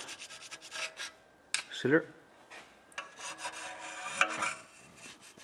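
Irregular scraping and rubbing on the engine block's sump mating face as old gasket sealer is cleaned off.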